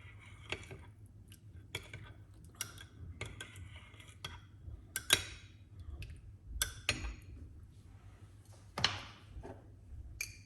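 A spoon clinking against a cup: a series of irregular light clicks and taps, with a few sharper ones.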